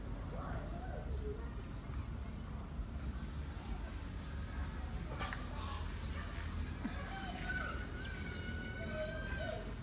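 Outdoor pond-side ambience: a steady high insect drone over a low rumble, with faint distant calls now and then, the longest a drawn-out call held for about a second and a half near the end.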